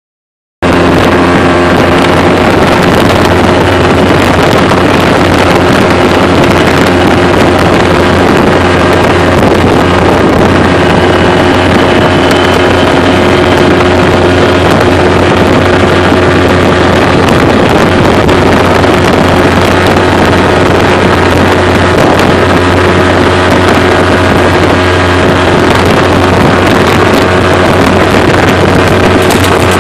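Engine of an open side-by-side UTV running steadily while cruising down the road, heard from inside the cab, with wind on the microphone.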